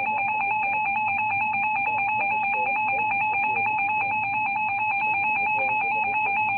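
Emergency Alert System attention signal: a loud, steady two-tone alarm sounding without a break, announcing a tornado warning.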